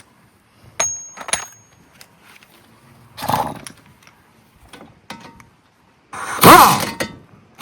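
Power tool driving a 5/8 socket on a brake caliper bracket bolt: two metallic clinks as the socket goes on, then short bursts of the motor whirring up and down in pitch as the bolt is broken loose.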